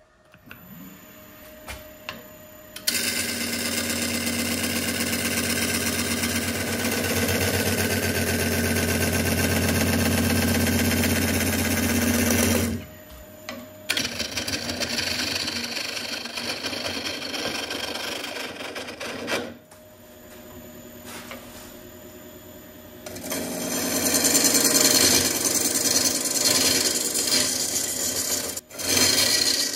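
Wood lathe spinning a hawthorn burl blank cast in epoxy resin while a turning tool cuts into it, a loud cutting noise with a fast rhythmic chatter. The cut stops twice, leaving the lathe running more quietly, then bites in again hard near the end.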